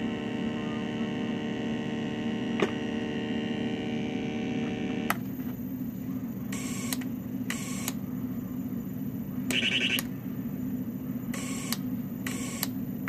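Homemade electronic synth droning: a steady buzzing tone with many overtones, which switches abruptly to a lower hum about five seconds in. After that, short bursts of higher buzz and a thin high whine cut in and out as its toggle switches are flipped.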